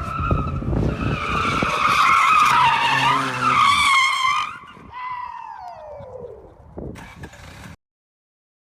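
A car drifting: tyres squealing loudly and wavering over the engine's rumble for about four seconds, then the squeal gliding down in pitch as the car slows. The sound cuts off abruptly near the end.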